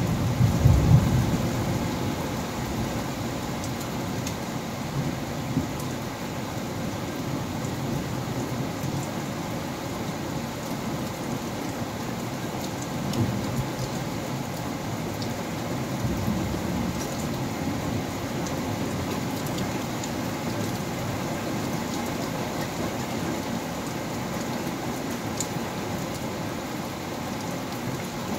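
Steady rain falling, with a low rumble of thunder about a second in that fades over the next few seconds; two fainter rumbles come about halfway through.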